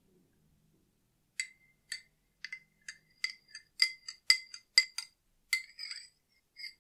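A metal spoon stirring a drink in a glass tumbler, clinking against the glass wall in a series of ringing clinks, about two a second, starting about a second and a half in and loudest around the middle. A few softer clinks come near the end as the spoon is lifted out.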